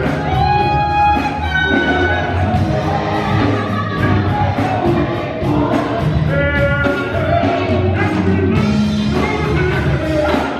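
Gospel choir singing live, with voices on microphones and a band with drums keeping a steady beat.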